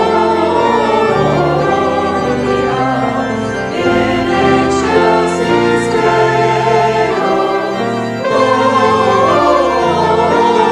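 A hymn sung by a choir with organ accompaniment, in sustained chords with short pauses between phrases.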